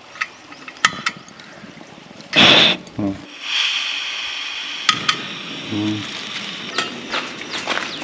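Portable camping gas stove with a small gas canister being set up: a short loud hiss of gas about two and a half seconds in, then a steadier hiss that slowly fades, with scattered sharp clicks and knocks of handling.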